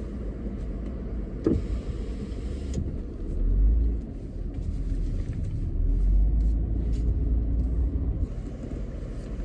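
Car engine and road rumble heard from inside the cabin as the car moves forward. The low rumble swells about three seconds in and again past the middle, and there is a single click about a second and a half in.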